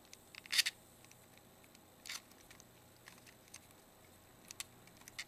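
Small plastic clicks and snaps from a Sony S40 camera's parts being handled and pressed into place during reassembly. A short snap about half a second in is the loudest, with a second one about two seconds in and light ticks between.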